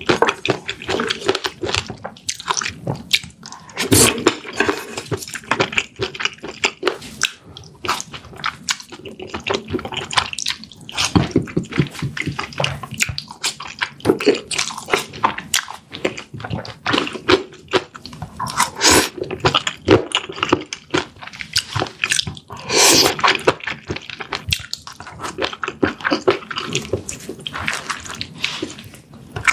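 Close-miked eating sounds: wet chewing, smacking and slurping of a saucy spicy stew, with many short irregular clicks.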